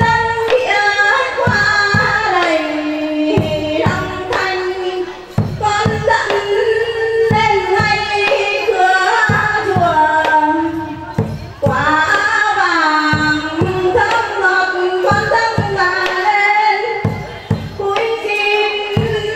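Music: a woman singing a slow melody with long, sliding notes, over scattered percussion strikes.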